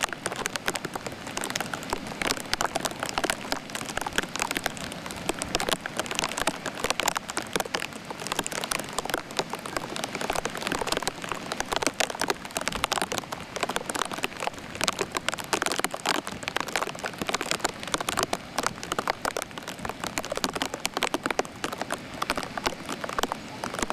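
Heavy rain falling, a steady dense patter of drops crackling close by.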